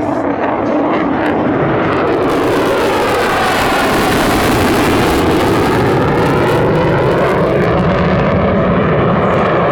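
F-35A Lightning II's single F135 turbofan running loud as the jet flies a pass, its steady roar taking on a sweeping, phasing whoosh through the middle as it goes by.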